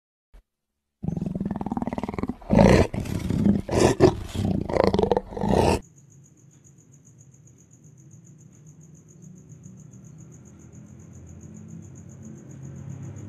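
Black panther roaring in a run of loud, repeated calls, starting about a second in and cutting off abruptly near the middle. After that only a faint low rumble remains.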